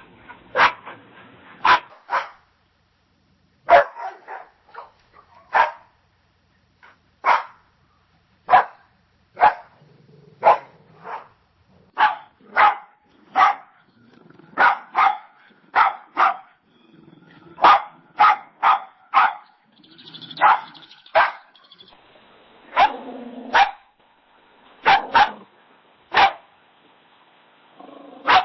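Dog barking: a long series of short, single barks, a few in quick pairs and triplets, from several different recordings one after another.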